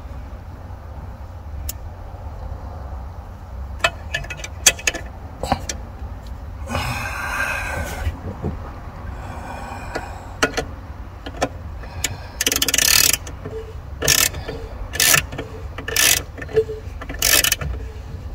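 Scattered mechanical clicks, then a run of short, loud rasping strokes about once a second over a steady low rumble.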